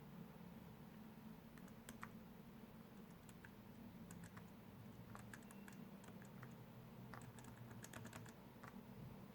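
Faint, irregular keystrokes on a white MacBook's keyboard, starting about a second and a half in and stopping shortly before the end, over a low steady hum.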